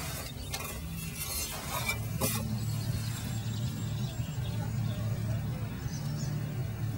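Fired bricks clinking together a couple of times as they are handled, over a steady low rumble.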